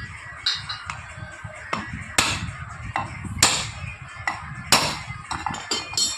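A hammer knocking on metal fan parts: about a dozen uneven blows, the three loudest about two, three and a half and nearly five seconds in, each ringing briefly. Background music plays under the knocks.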